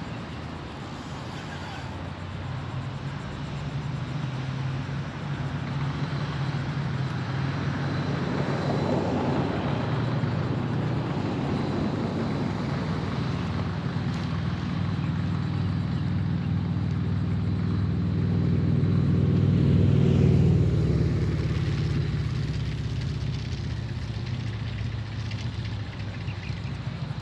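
An engine passing: a steady low hum that builds slowly for about twenty seconds, peaks, then fades away.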